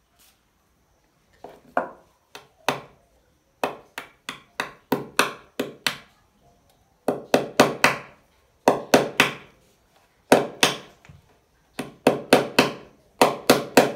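Pliers used as a hammer, knocking cable clips into a plywood board to hold a power cord down: many sharp wooden knocks in quick runs of several a second, with short pauses between runs.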